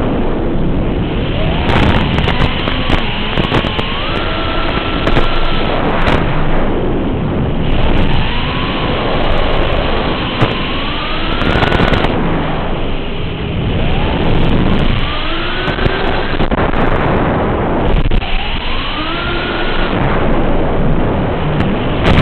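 FPV quadcopter's motors and 5-inch props whining, the pitch rising and falling again and again with the throttle, over heavy rushing noise. Brief crackles of static come through, one as the analog video signal breaks up about twelve seconds in.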